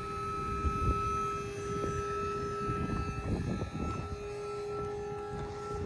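A motor running steadily: a low hum with a steady whine above it.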